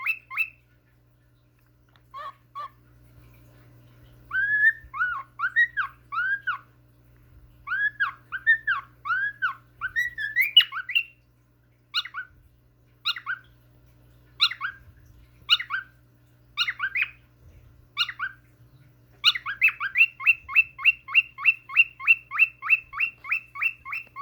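Cockatiel making baby noises: rising-and-falling chirps in the first half, then single chirps about a second apart, then from about 19 s a fast, steady run of short chirps, several a second.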